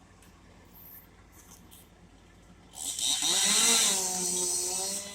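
A chainsaw starts up about three seconds in and runs loudly. Its pitch dips and then settles to a steady note, and it gets somewhat quieter near the end.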